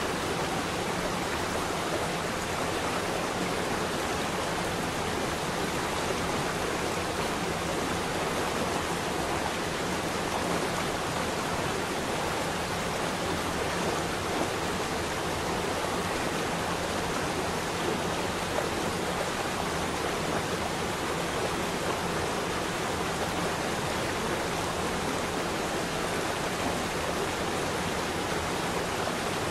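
Steady rushing of running water, an even hiss with no separate splashes or drops.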